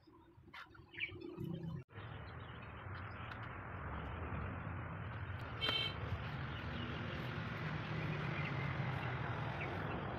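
Steady outdoor background noise, starting after a brief gap about two seconds in, with a single short high chirp about halfway through.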